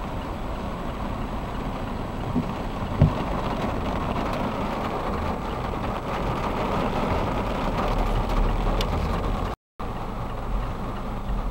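Heavy monsoon rain drumming steadily on a car's roof and windshield, heard from inside the car, over the low running noise of the car moving along a wet road. A single thump comes about three seconds in, and the sound cuts out for a moment near the end.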